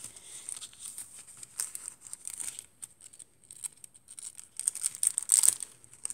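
Paper rustling and crinkling as the pages, pockets and cards of a handmade paper junk journal are handled and turned, with irregular crisp rustles that get louder near the end.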